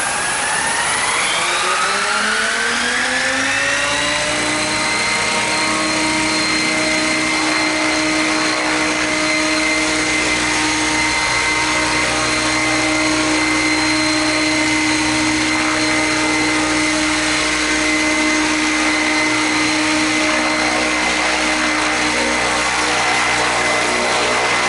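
Radio-controlled model helicopter spooling up after a repair: its motor and rotor whine rises in pitch over the first four seconds or so, then holds steady at a constant high whine.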